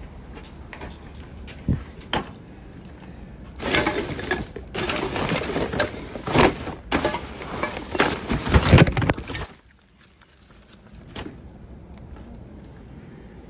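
Rummaging through a plastic wheelie bin full of rubbish: plastic and paper bags crinkling and rustling with small clinks and knocks, loud for about six seconds from a few seconds in, then dying down. A couple of single knocks come before it.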